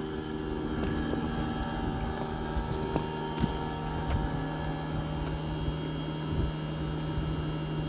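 Outdoor heat pump unit running in defrost mode on an iced-up coil: a steady low hum with several steadier, higher tones over it, and a few faint clicks.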